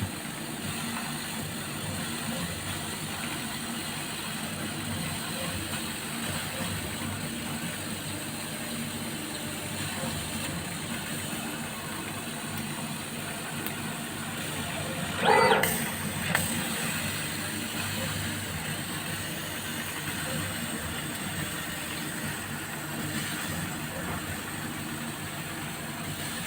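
CO2 laser cutting machine running, giving a steady hum and hiss throughout. Past the middle comes one short, louder pitched sound, followed by a click.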